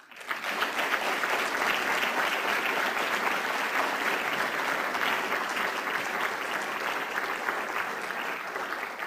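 Audience applauding, starting all at once and easing off slightly near the end.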